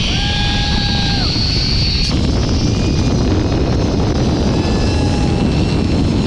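Zipline trolley pulley running along a steel cable, with heavy wind rushing over the microphone. The pulley's whine climbs in pitch as it speeds up and breaks off about two seconds in, leaving steady fainter tones under the wind.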